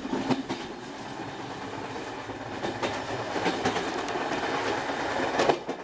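Running noise inside a moving passenger train carriage: steady rumble with wheels clicking over the rail joints and scattered knocks. A louder clatter comes about five and a half seconds in, after which the noise drops.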